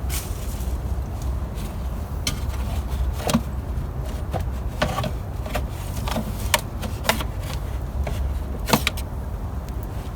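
Scattered sharp clicks and knocks, about ten at uneven intervals, as plastic air-box and duct parts are lifted off and handled in a car's engine bay, over a steady low rumble.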